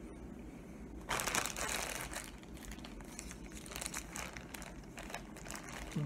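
A crinkly candy wrapper being handled: a burst of crinkling for about a second shortly after the start, then lighter scattered crackles.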